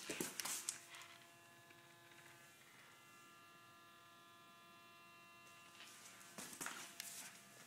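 A 2010 Toyota Tundra making a faint, steady hum of several even tones held together: the unwanted humming noise the truck is being recorded for. Sharp clicks and knocks come at the start and again near the end.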